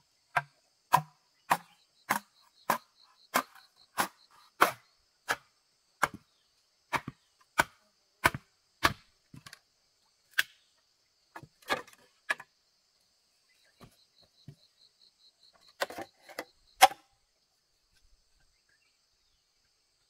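Repeated sharp strikes of a tool on wood, steady at about three every two seconds for the first nine seconds, then a few scattered blows with pauses between. Insects trill steadily in the background.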